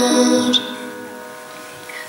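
A young girl's singing voice holds a note that ends about half a second in, leaving the accompaniment's held chords sounding and slowly fading.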